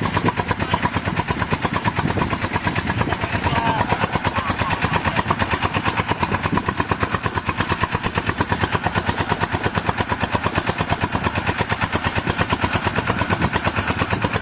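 Small fishing boat's engine running while trolling, with a fast, even beat, cutting off suddenly at the very end.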